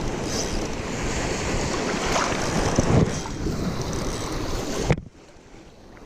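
Wind buffeting the microphone, a loud uneven rumble. It cuts off abruptly about five seconds in, leaving a much quieter background.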